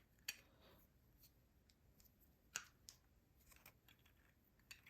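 Near silence broken by a few faint sharp clicks, two of them clearer than the rest: a Phillips screwdriver and screw working against the metal holder bracket of a handheld bidet as the screw is tightened.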